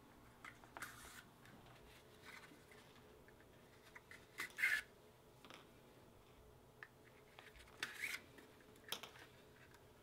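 Thread being drawn through the stitching holes of a vegetable-tanned leather case during hand saddle stitching: a handful of short pulls, the loudest a little before halfway and two more near the end.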